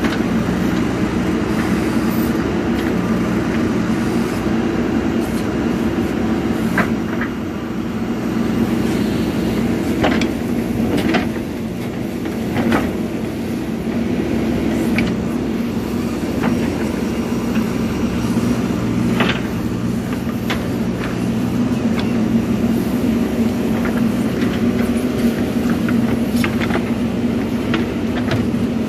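JCB 3DX Super backhoe loader's diesel engine running steadily, with scattered sharp knocks from the machine at work.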